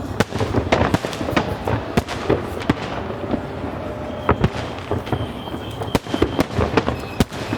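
Aerial fireworks shells bursting in quick succession, a dense run of sharp bangs and crackles, with a few louder bangs about four seconds in and near the end.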